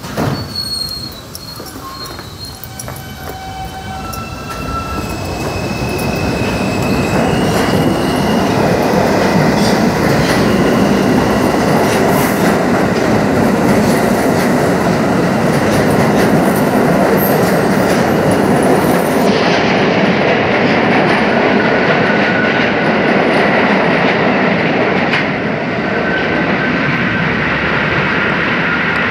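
New York City subway R160 train pulling out, its propulsion motors whining in a series of stepped tones as it accelerates. The whine gives way to a loud, steady running noise of wheels on rail, with high wheel squeal in the later part.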